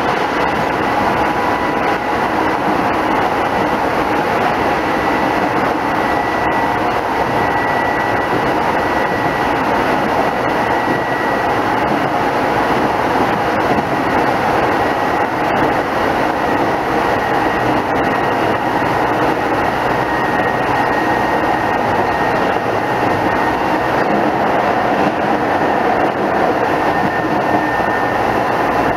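Running noise of a Keisei 3500 series electric commuter train heard from inside the passenger car: a steady rumble of wheels on rail, with a thin high whine wavering in and out.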